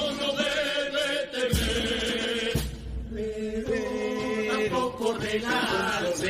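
Men's voices of a carnival chirigota singing a line together in chant-like unison, with a couple of low thuds underneath.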